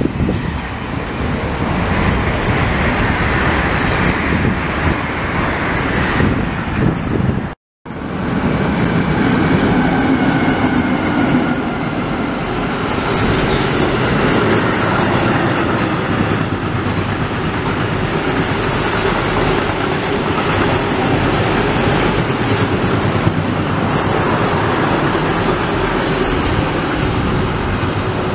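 A Dutch yellow-and-blue double-deck electric passenger train running past. After a sudden cut about eight seconds in, a long freight train of covered hopper wagons rolls by with steady wheel-on-rail noise.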